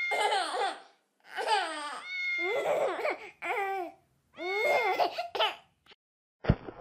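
A baby's voice in four high-pitched vocal bursts with short silences between them. A rapid run of sharp clicks starts just before the end.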